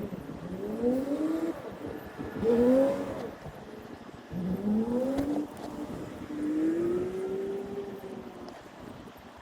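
A road vehicle accelerating through the gears: the engine note rises four times, each rise longer than the last, dropping at each gear change.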